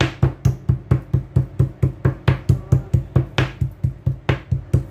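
Back of a kitchen knife pounding a raw pork chop against a wooden cutting board to loosen and tenderise the meat: a fast, even run of dull knocks, about five a second.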